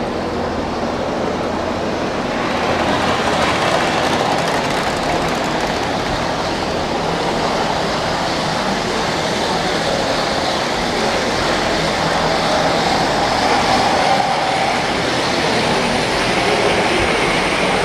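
Model trains running on a raised layout, led by a scale Caledonian Railway Cardean-class 4-6-0 locomotive with its carriages. The wheels on the rails make a steady rolling rumble and clatter.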